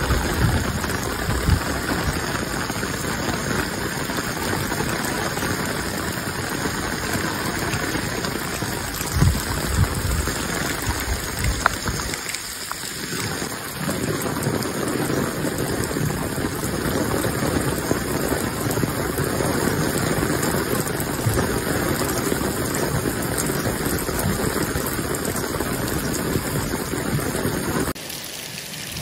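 Heavy rain falling steadily, pattering and splashing on a tiled terrace and the street below, with a few low thumps. The sound drops in level near the end.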